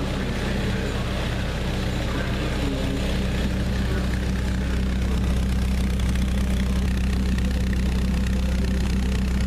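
Car engine idling steadily with a low, even exhaust note and no change in speed.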